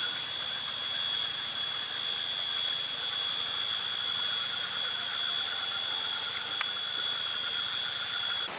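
A steady, high-pitched ringing tone with fainter higher overtones and a low wavering buzz beneath it. It is an edited-in suspense sound effect, and it cuts off abruptly near the end.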